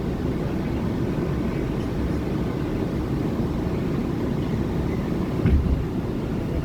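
Steady rumble of an R179 subway car running, heard from inside the car, with a low thump about five and a half seconds in.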